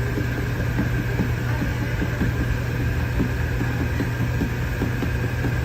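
Steady low mechanical hum with a thin, faint high whine over it, unchanging in pitch and level.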